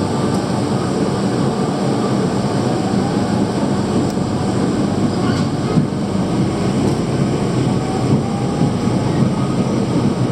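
Bangkok MRT Yellow Line rubber-tyred monorail train running between stations, heard from inside the car: a steady, loud running rumble with a faint motor hum.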